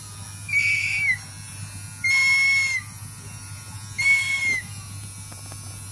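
Captive young bird of prey calling three times: a high, clear whistle of about half a second to under a second, each dipping slightly in pitch at its end, repeated roughly every two seconds.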